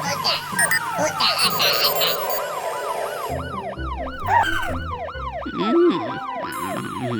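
A cartoon fire truck's siren wailing fast, its pitch rising and falling about two to three times a second, over background music with a few other whooshing cartoon sound effects.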